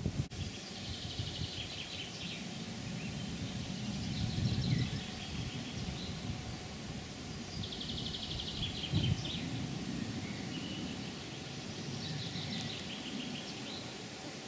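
A songbird singing a short trilled phrase about four times, a few seconds apart, over a low rumble.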